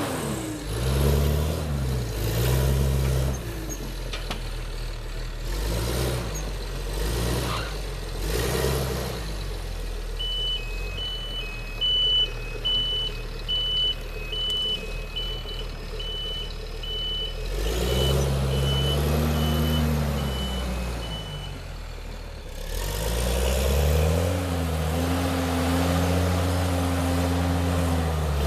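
Heavy vehicle engine revving up and down repeatedly. A reversing alarm beeps steadily for about ten seconds in the middle.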